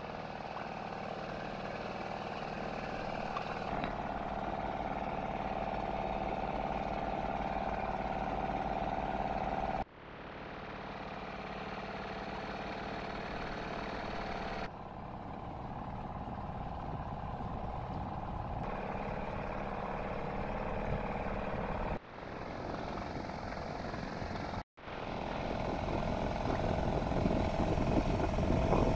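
An engine runs with a steady droning hum. The sound breaks off abruptly and resumes several times, where the footage is cut.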